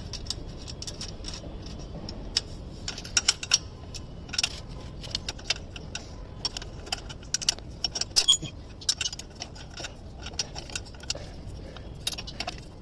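Hand tools working on a motorcycle exhaust's fittings: many irregular metallic clicks and clinks of a spanner on the 10 mm nuts and bracket, over a low steady background hum.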